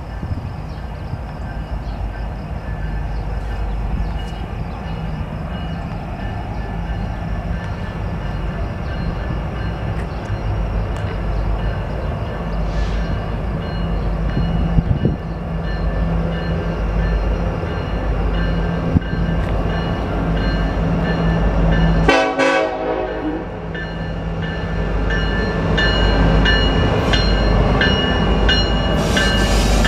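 Approaching Union Pacific diesel freight locomotives running, with the horn sounded to warn track workers on the neighbouring track. The train grows louder near the end, and wheels start clattering over the rails as it arrives.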